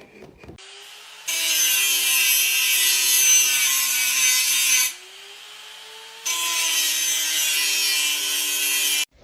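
A loud rasping, mechanical noise in two long runs of about three and a half seconds each, the second starting about six seconds in, with a quieter hum between them.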